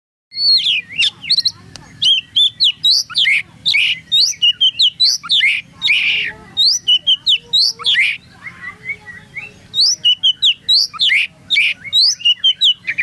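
Oriental magpie-robin (kacer), a champion contest bird, singing at full volume: a fast, unbroken run of sharp whistled notes, slurs and chatters, with a short pause about eight and a half seconds in before the song resumes.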